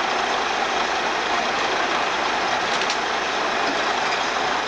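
Steady, even drone of diesel heavy equipment running: crawler sideboom tractors working at the track, with no distinct knocks or changes.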